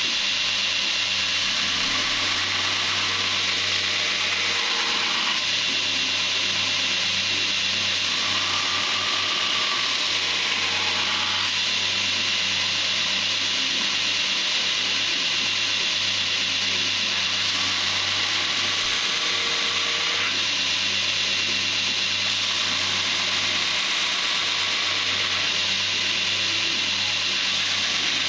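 Belt grinder running with steel held against the belt: a loud, steady grinding hiss over the motor's low hum, its tone shifting a few times, near five seconds in, around nine to eleven seconds and near twenty seconds.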